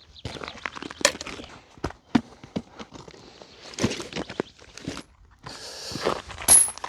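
Footsteps and the irregular clicks and knocks of camping gear being handled and set down, with a brief rustle about five and a half seconds in and a loud sharp knock near the end.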